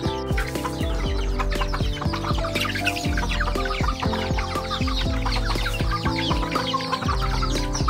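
A flock of chickens clucking and calling as they gather to peck at feed on the ground, over background music with steady held notes.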